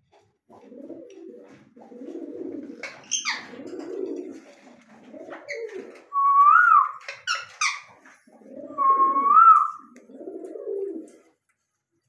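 Domestic pigeons cooing in repeated low phrases, with a few sharp parakeet squawks. Two loud rising-and-falling whistled calls come about halfway through and again near the end.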